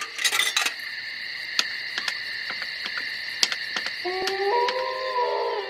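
Channel-intro sound effects: a steady high ringing with scattered sharp clicks, joined about four seconds in by several held tones that step up and down in pitch together.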